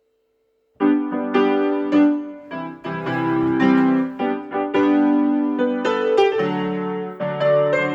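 Electronic keyboard in a piano voice playing an instrumental intro: a melody over sustained chords, starting about a second in after a faint steady tone.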